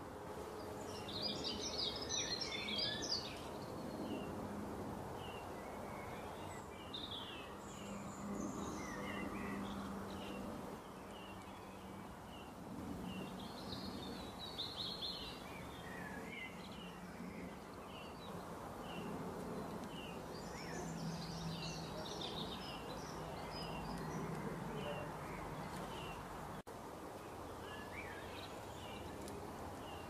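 Several birds chirping and twittering over a steady background of outdoor noise. One short call repeats about once a second, and bursts of rapid twittering come near the start, about halfway through and about two-thirds of the way in.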